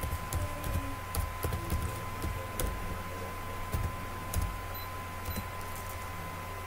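Computer keyboard keys clicking irregularly as a word is typed, over a steady low hum and a thin steady high tone.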